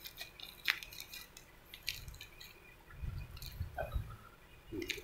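Scattered faint clicks and ticks, a few seconds apart, with low dull knocks and rumbling about three to four seconds in.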